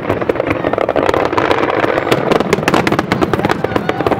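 Fireworks going off in a dense, continuous barrage: rapid crackling and popping over a steady low rumble.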